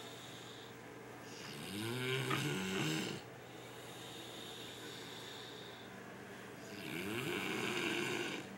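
A man snoring heavily: two long snores about five seconds apart, each lasting a second and a half or more.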